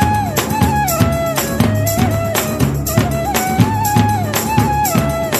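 Indian classical-style dance music: a melody that holds notes and slides between them, over a steady percussion beat.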